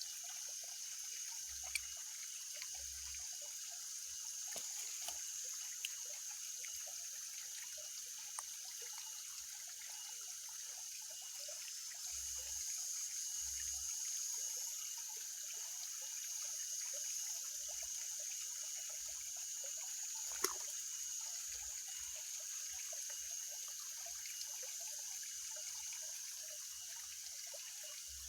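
Steady trickle of water, with a steady high hiss over it, scattered faint ticks, and one sharper click about twenty seconds in.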